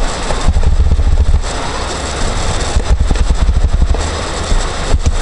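Steady low rumble with noise over it, and two bursts of rapid clicking or rattling: one about half a second in, the other about three seconds in.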